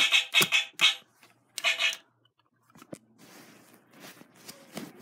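A few short, loud bursts of sound in the first two seconds, followed by soft rustling and scraping as the phone is handled and brushed against bedding.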